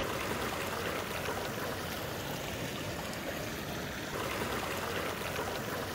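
Small mountain stream running over rocks: a steady rush and splash of water.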